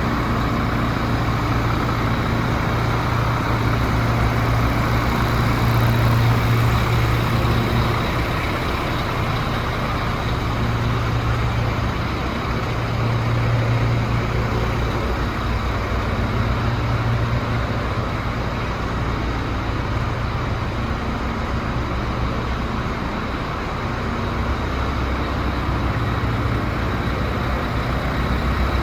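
DAF CF75 truck's 310 bhp turbo diesel engine idling steadily, with a low hum.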